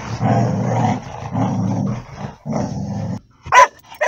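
Collies growling in a run of long, rough growls with short breaks between them, followed by two short, sharp barks near the end.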